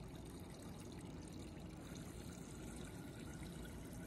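Water from a refrigerator door dispenser running steadily into a stainless steel shaker bottle.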